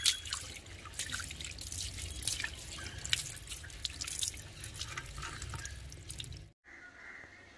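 Tap water running and splashing over hands into a plastic washbasin as they are rinsed, with irregular splashes and drips. It stops abruptly about six and a half seconds in.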